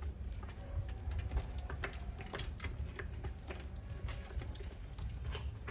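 A child's bicycle with plastic training wheels rattling and clicking as it is pushed slowly over rough concrete, in irregular ticks over a low rumble.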